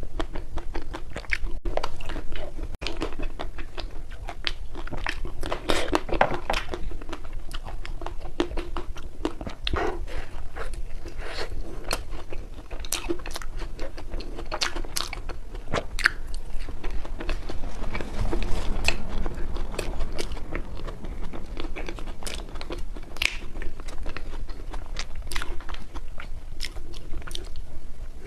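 Close-up chewing and biting of ice cream, with wet smacking and crunchy crackles coming irregularly several times a second.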